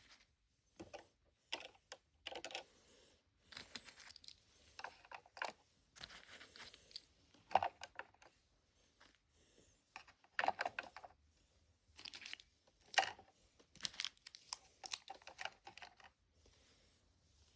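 Irregular clicks and taps of small plastic pieces handled and set into a toy refrigerator, with a few short rustles.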